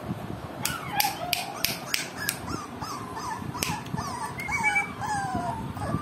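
Cocker spaniel puppies whimpering: a rapid string of short, high whines that rise and fall, with a few sharp clicks in the first half.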